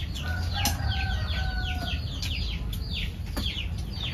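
Chickens peeping: many short, high, falling peeps in quick succession, with a faint drawn-out call in the first two seconds. A few light clinks of utensils on bowls sound over a steady low hum.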